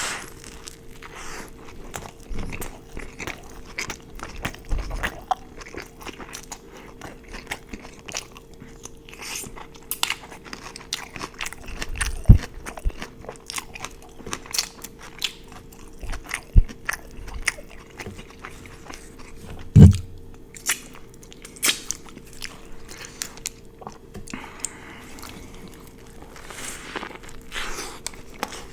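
Close-miked eating: bites and chewing with many crisp crunches and crackles, food from an In-N-Out burger meal with raw celery and carrots. A few heavier low thumps stand out about twelve and twenty seconds in, over a faint steady hum.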